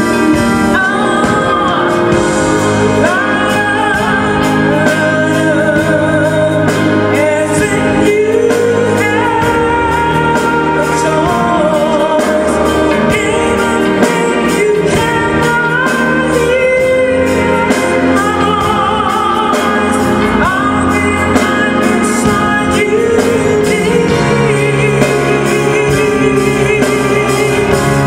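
Live band playing a song with a female lead singer holding long, wavering notes over a steady drum beat.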